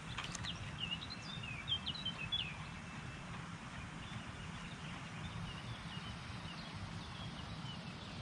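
Small birds chirping in quick short notes, busiest in the first couple of seconds and fainter afterwards, over a steady outdoor background rush.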